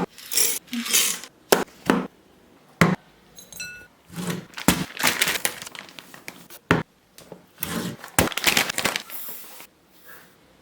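Kitchen food-preparation sounds: sharp knocks and clinks of utensils against bowls and dishes, with one ringing clink about three and a half seconds in, between short noisy bursts.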